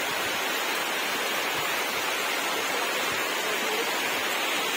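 Heavy monsoon rain pouring down, a dense, steady hiss.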